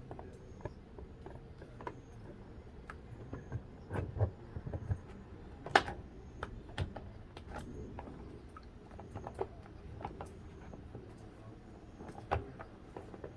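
Scattered clicks and knocks of tools and small parts being handled, with no motor running. The loudest is a sharp click about six seconds in.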